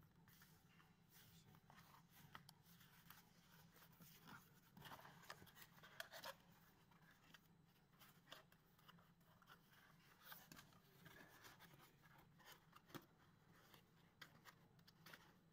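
Faint rustling, scraping and clicking of corrugated cardboard being folded by hand into a box, its flaps creased and tucked in, over a low steady hum.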